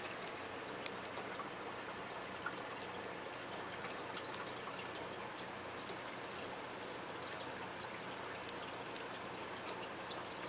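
Aquarium filter's return water pouring steadily into the tank, a constant splashing trickle with fine bubbly crackle. Two brief clicks sound about a second and two and a half seconds in.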